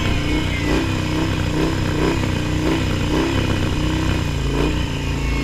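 Harley-Davidson V-twin motorcycle engine running steadily, with no large rise or fall in revs.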